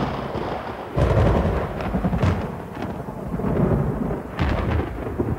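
Thunder from a lightning storm: a sudden crack right at the start and another about a second in, deep rumbling between, and a further clap near the end.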